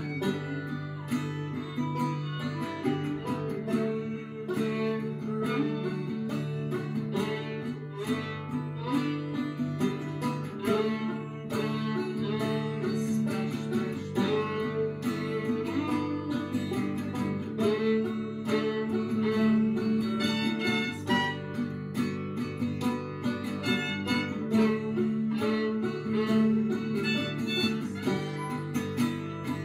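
Acoustic guitar strummed, banjo picked and fiddle bowed together, playing an instrumental folk tune with a steady, even rhythm.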